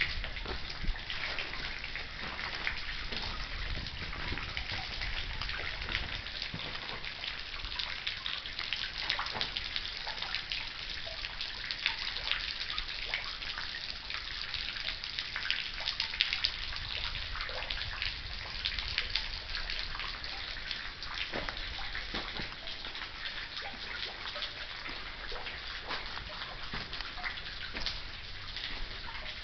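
Spring water dripping and trickling from a mossy rock overhang into a pool: a steady patter of many drops over a constant splashing hiss.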